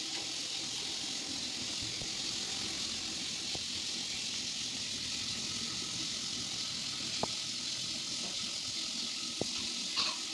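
Cooking oil poured from plastic pouches into an oil can: a steady, even stream of liquid, with a couple of faint clicks in the later half.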